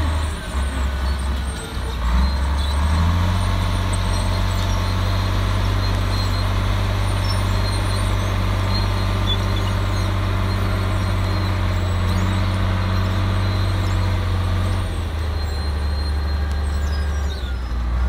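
Komatsu D53A crawler bulldozer's diesel engine running steadily while it pushes soil with its blade. The engine note rises about two to three seconds in and eases back around fifteen seconds in.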